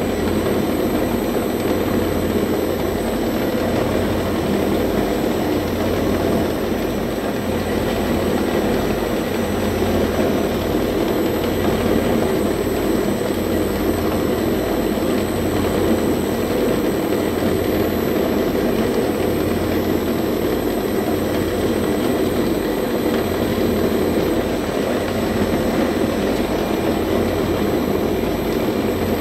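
Stephan UMSK 24 vertical cutter-mixer running steadily, its blades chopping and mixing surimi fish paste in the stainless steel bowl.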